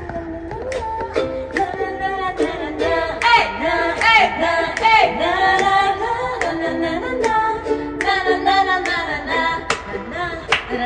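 Music: a song with a singing voice over a percussive beat.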